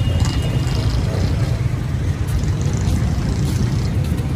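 Street traffic: passing vehicles with a steady low rumble.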